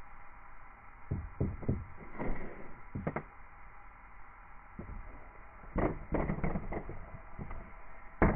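Scattered short knocks and clunks from handling parts and tools on a rooftop RV air conditioner, in small clusters, the sharpest near the end, over a steady faint hum.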